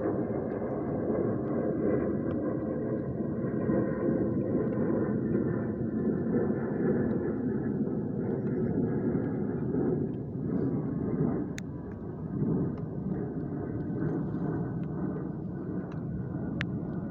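Steady low rushing noise, with two sharp clicks, one past the middle and one near the end.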